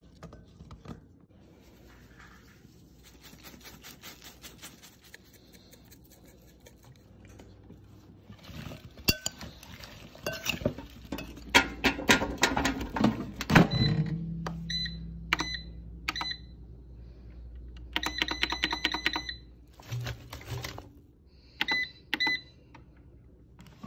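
Squash slices being laid into a metal air fryer basket with light knocks and clattering, loudest in the middle. Then the air fryer's control panel beeps in short high beeps, singly and in quick runs, as its buttons are pressed to set the cooking time.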